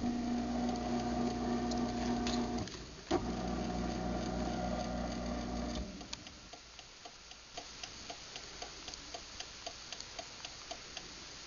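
Craftsman half-horsepower garage door opener motor running, cutting out about two and a half seconds in, then starting again with a click and running a few more seconds: the opener stopping and reversing in a safety-sensor test. Then steady clicking, about two and a half clicks a second, as the opener lights flash to signal a safety-sensor fault.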